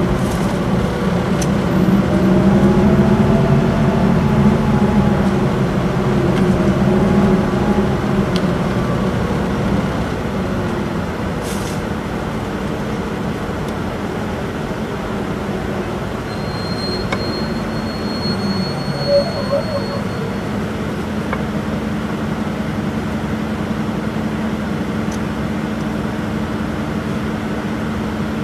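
Isuzu Erga city bus's diesel engine and torque-converter automatic heard from inside the cabin. The engine note rises and falls under way in the first part, eases off about ten seconds in as the bus slows, and settles into a steady idle once it has stopped. A brief faint high squeal comes during the slowdown.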